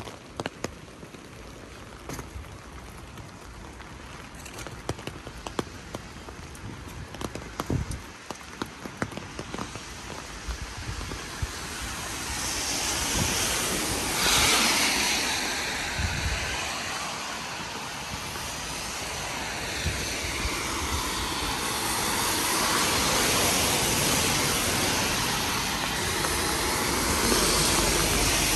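Rain in a street: scattered drops tapping close by over a light hiss, then a louder hiss of rain and tyres on the wet road that swells in about twelve seconds in and stays up, rising and falling as it goes.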